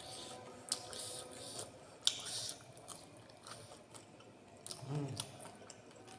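Close-up eating sounds: a person chewing a mouthful of food, with wet mouth noises, a couple of sharp clicks in the first few seconds and a short low hum about five seconds in.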